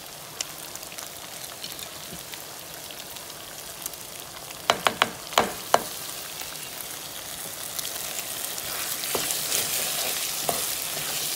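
Ground beef and tomato sauce sizzling in a pot while a wooden spoon stirs it. About five seconds in comes a quick run of about five sharp knocks, and the sizzling and stirring grow louder toward the end.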